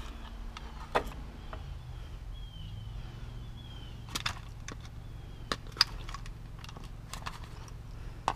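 Electrical wiring being pulled out of a scrapped machine: scattered sharp clicks and knocks over a steady low hum.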